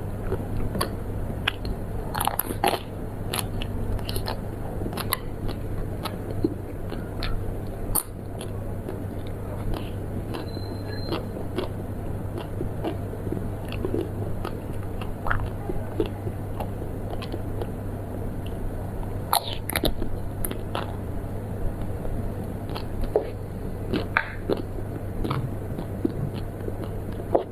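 Close-miked eating: biting and chewing sweets, with many short, irregular crunchy clicks over a steady low hum.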